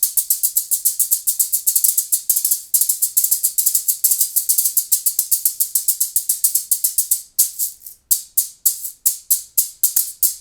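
A pair of Latin Percussion One Shot Shakers played in a fast maraca-style rhythm, each stroke a single short, crisp burst of sand-like rattle without the shuffle of an ordinary shaker. About seven seconds in, the pattern changes to slower, separated strokes.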